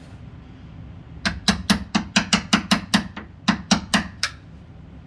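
Hammer tapping a wood chisel into the edge of a wooden door slab, cutting the shallow mortise for the door latch. About a dozen quick, ringing taps come in two runs, starting about a second in and stopping a little after four seconds.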